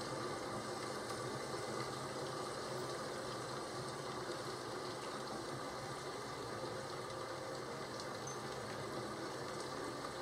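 Steady rainfall, an even continuous hiss.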